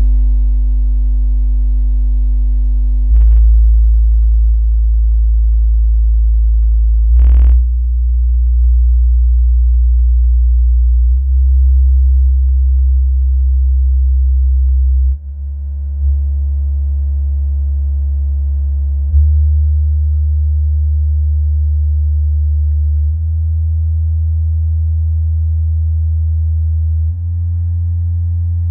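JBL CS1214 subwoofer playing a bass test sequence: loud steady low tones, each held about four seconds before stepping to the next, the pitch climbing overall from a deep rumble to a higher bass note. A brief blip sounds about seven seconds in.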